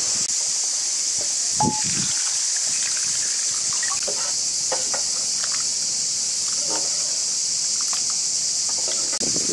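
A hand swishing and sloshing water in a terracotta pot, with small splashes and drips, over a steady high hiss. A short chirp sounds about one and a half seconds in.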